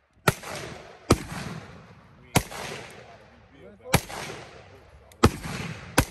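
Six single rifle shots fired at uneven intervals of about one to one and a half seconds. Each is a sharp crack followed by an echo that dies away within about a second.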